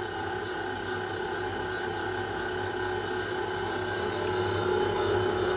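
KitchenAid Artisan stand mixer running at a steady speed, its motor giving an even hum as the attachment mixes pizza dough ingredients in the steel bowl. It grows a little louder toward the end.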